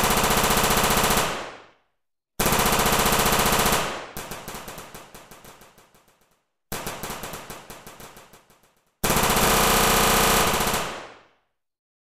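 Dubbed-in machine-gun fire sound effects: four bursts of rapid automatic fire with dead silence between them, two of the bursts trailing off into slower, fading single shots.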